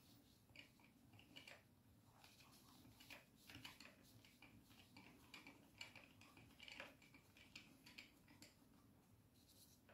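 Near silence with faint, irregular small clicks and rubs of hands handling a small DC motor's metal housing.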